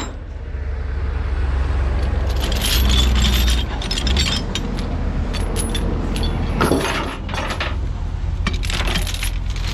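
Steel tie-down chains clinking and rattling as they are handled: a run of sharp metallic clinks over a steady low rumble.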